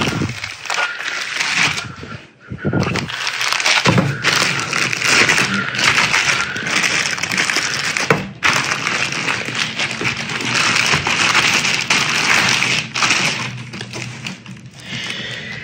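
Clear plastic wrapping crinkling and rustling as a new soundbar is handled and slid out of it, with polystyrene foam packing pieces rubbing and knocking, and a few thumps.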